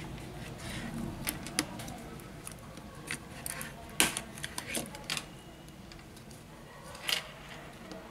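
Scattered small clicks and taps of metal tweezers against the Xiaomi Pocophone F1's internal upper cover and frame as the cover is lifted out, with the sharpest click about four seconds in and another near seven seconds.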